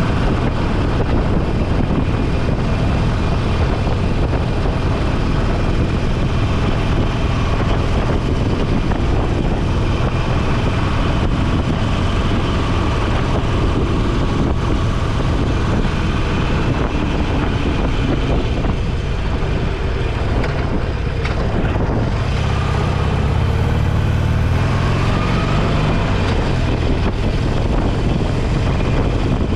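Motorcycle engine running under way with wind rushing over the microphone. From about 22 seconds in the engine note changes and rises as the bike picks up speed.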